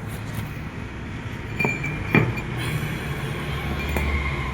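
Workshop machine running with a steady low hum, with a few sharp metal clinks, the loudest a little over two seconds in, ringing briefly.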